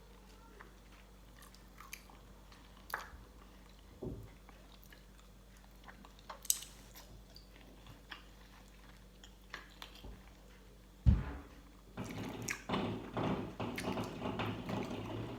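Close-up eating sounds: a person chewing and crunching on papaya salad with chicken feet, scattered clicks at first. A loud knock comes about eleven seconds in, then dense crunchy chewing near the end.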